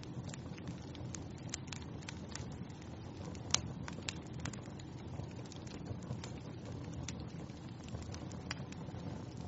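Wood fire burning in a fireplace: a steady low rumble of flames with scattered crackles and small pops, the sharpest pop about three and a half seconds in.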